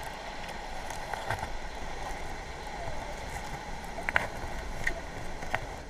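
Bubble curtain's air bubbles streaming up through river water, heard underwater: a steady rushing hiss with scattered short ticks, the sharpest a little after four seconds in.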